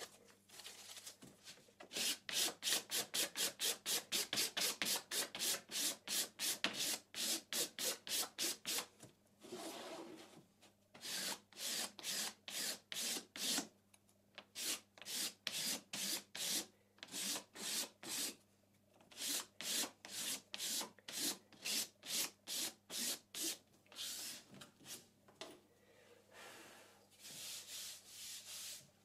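Oak panel being sanded by hand with sandpaper in quick back-and-forth strokes, about four a second, in runs broken by short pauses.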